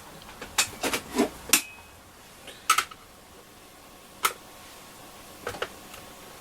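Scattered light clicks and taps, several close together in the first second and a half, then a few single ones, from handling a transistor radio's chassis and its screws.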